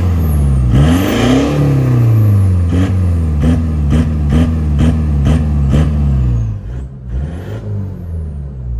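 Stage 2 remapped Isuzu D-Max V-Cross turbodiesel engine being revved while standing: a long rev up and back down, then a quick run of short throttle blips about three a second, dropping back toward idle near the end. A whistle rides on the revs.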